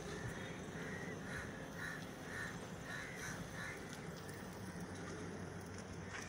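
Crows cawing again and again, about two calls a second, stopping about four seconds in, over a steady low background rumble.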